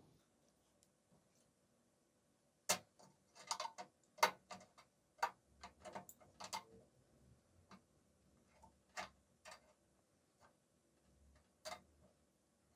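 Kitchen tongs clicking and tapping as marinated lamb chops are lifted from a bowl and laid into an air fryer's mesh basket: a string of light, irregular clicks that starts about three seconds in.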